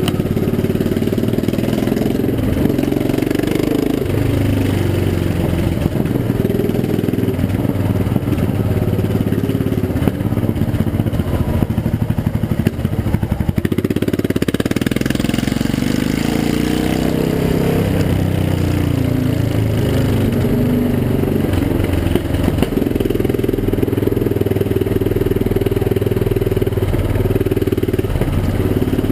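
Yamaha XT660R single-cylinder motorcycle engine running through one open, unmuffled exhaust, loud and raw. The note rises and falls with the throttle, and about halfway through it drops to a slow beat of separate firing pulses before picking up again.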